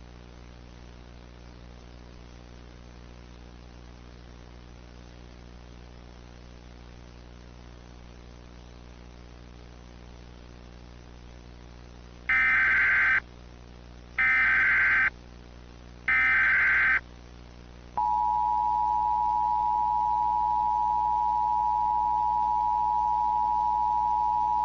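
Emergency Alert System tones: after a steady low hum, three short data bursts of the SAME header, each under a second and about a second apart, then the steady two-tone attention signal starting about 18 seconds in.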